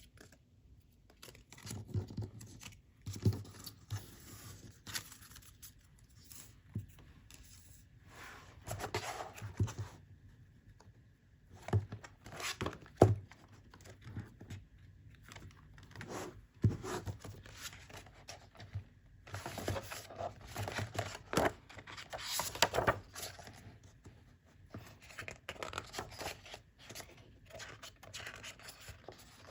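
Packaging handled and opened by hand: irregular bursts of paper or plastic being torn and rustled, with sharp taps and clicks in between.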